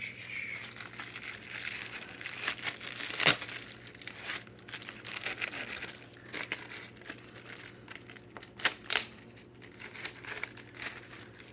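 Wrapping being pulled off small items by hand: irregular crinkling and crackling of the wrapping material, with a sharper, louder crack about three seconds in.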